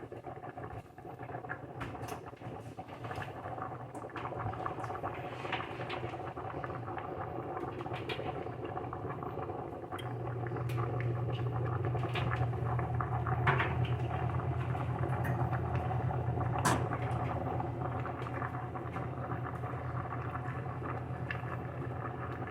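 Chicken drumsticks pan-frying in oil: a continuous crackling sizzle with a few sharper pops, over a steady low hum that gets louder about ten seconds in.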